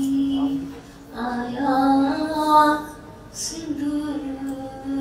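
A woman singing a Sindhi song solo, holding long notes, with short breaks about a second in and again near three seconds.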